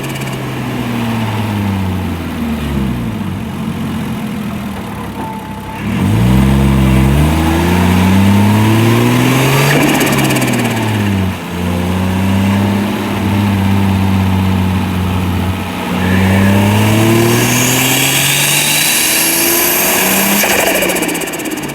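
Turbocharged 2.0-litre 1G-FE straight-six in a Lexus IS200, running through a 2.5-inch straight-pipe exhaust and revving up and down several times. The pitch drops at first, climbs sharply about six seconds in, holds steady for a few seconds, then climbs and falls again, with a faint rising whistle near the end.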